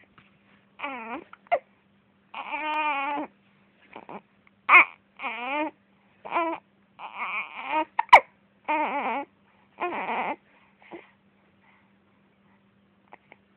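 Baby crying in a string of short, wavering wails, upset by hiccups. A single sharp click cuts in about eight seconds in, the loudest moment.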